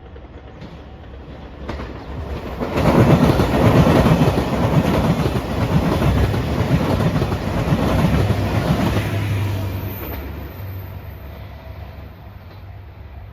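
JR Shikoku 2700 series diesel express train passing close by, its wheels clattering in a rhythm over the rail joints. The sound swells suddenly about two and a half seconds in, stays loud for several seconds, then fades as the train moves away.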